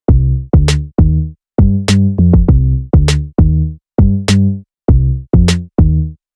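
Background electronic music: a drum-machine beat of short, repeated bass notes and sharp drum hits about every half second.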